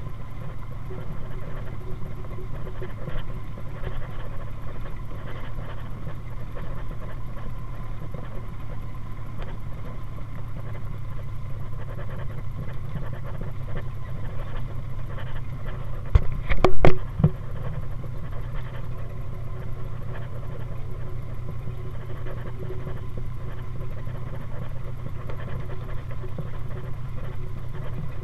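Four-cylinder Model A engine of a 1931 Ford Speedster hot rod running steadily at low speed. About sixteen seconds in there is a short burst of several loud bangs.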